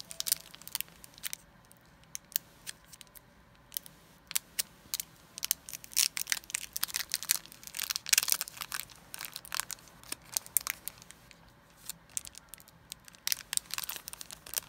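Foil Yu-Gi-Oh! booster pack wrapper being torn open by hand, crinkling and crackling in short, irregular flurries.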